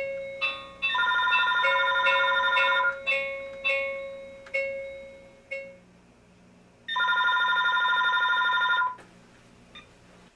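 Telephone ringing: two trilling rings, each about two seconds long and four seconds apart. They play over a chiming melody of decaying notes that fades out about six seconds in.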